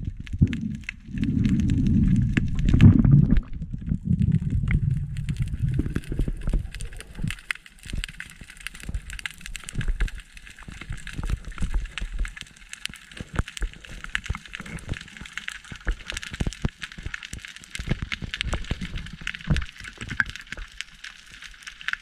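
Underwater sound picked up by an action camera in its housing. A low, muffled rumble of water rushing past the camera as the diver swims fills the first several seconds, then quietens. A steady hiss with scattered sharp crackling clicks runs underneath throughout.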